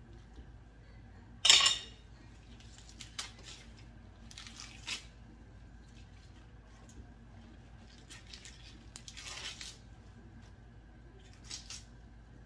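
Wooden spoon pushing collard greens down into a stainless steel pot of hot water: one sharp knock against the pot about a second and a half in, then a few softer rustles and scrapes as more leaves go in.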